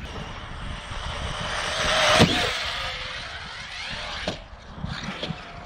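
Electric RC car speeding across gravel, its motor whine and tyre noise rising as it comes close and peaking about two seconds in with a sharp knock, then fading away.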